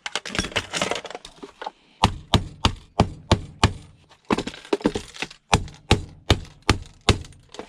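Handling and scraping for about two seconds, then a rapid run of sharp blows, about three a second, as a loudspeaker's cabinet is struck to break it apart for scrap.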